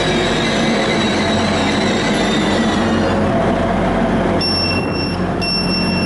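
Train running with a steady rumble and whine. From about four seconds in, three evenly spaced electronic beeps sound, about a second apart.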